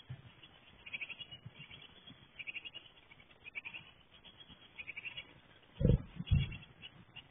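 Japanese tit nestlings, near fledging, giving rapid high begging calls in repeated short bursts while a parent feeds them. About six seconds in come two loud thumps as the parent bird leaves the wooden nest box through its entrance hole.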